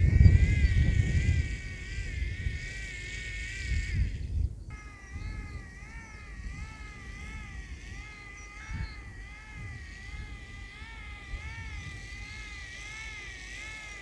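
A 3D-printed hand-cranked air raid siren wailing with a high tone that wavers up and down about twice a second. There is a low rumble over it in the first few seconds. After a brief break about four seconds in, the wail returns with lower tones joining beneath it.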